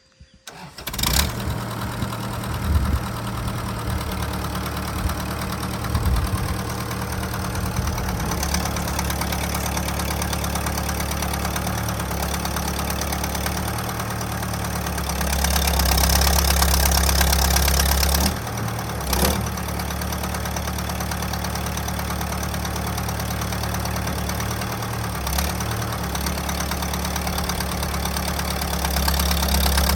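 Kubota M59 tractor's diesel engine running steadily from about a second in. It runs louder and faster for a few seconds in the middle and again near the end, as if revved up.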